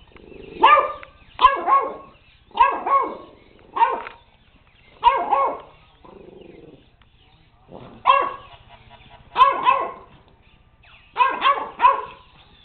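Puppy barking repeatedly, in single barks and quick doubles, with a gap of about two seconds midway.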